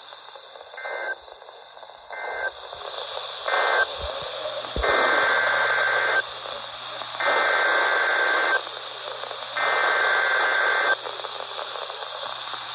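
Emergency Alert System SAME data bursts received over radio static: three short end-of-message bursts, then three longer buzzy bursts about a second apart carrying the header of the next alert.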